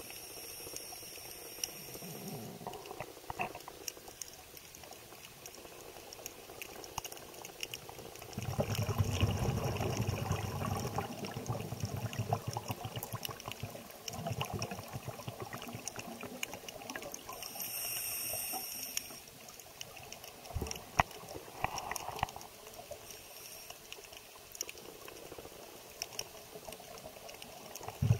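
Underwater ambience on a scuba dive: swells of bubbling from exhaled air, the strongest about eight to eleven seconds in, over a steady bed of faint scattered clicks and crackle.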